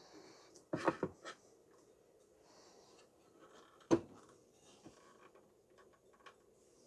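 Hands handling the end housing of a pool pump motor during reassembly: a short cluster of clunks and knocks about a second in, and one sharp knock about four seconds in.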